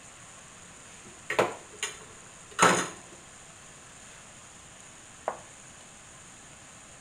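Dough frying in a pan of oil with a faint steady sizzle, broken by a few sharp clatters of kitchenware about a second and a half and three seconds in, the last the loudest. Near the end, a single light tap of a wooden spatula against the pan.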